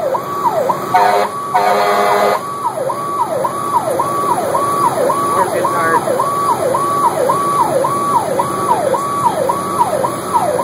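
Emergency vehicle's electronic siren in yelp mode, heard from inside the cab, rising and falling about twice a second. About a second in it switches briefly to a harsher, rapidly pulsing horn-like tone before the yelp resumes. Steady engine and road noise runs underneath.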